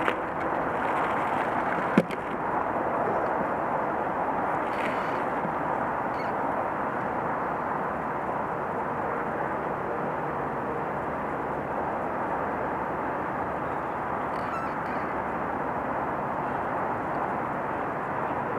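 Steady, muffled running noise of kart engines idling while the karts stand queued, heard through the onboard camera's housing, with one sharp click about two seconds in.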